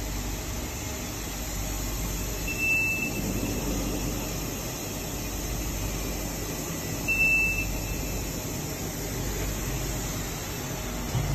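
5-axis CNC tool grinder running with a steady machine hum and hiss, grinding a tungsten carbide milling cutter. Two short high beeps sound about four and a half seconds apart.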